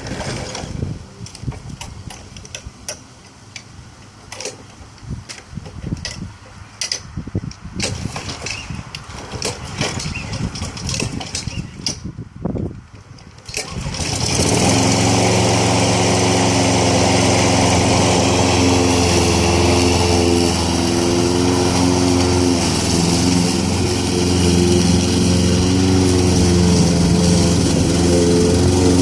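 Scattered knocks and clicks for about fourteen seconds, then a petrol lawn mower engine starts and runs steadily at a constant speed to the end.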